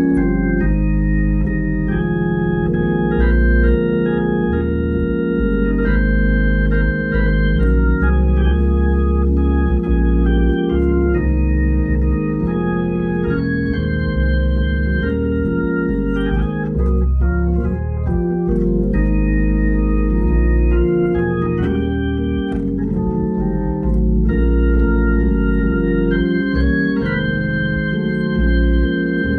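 Hammond drawbar organ playing held chords on both manuals, the chords changing about every second over deep bass notes.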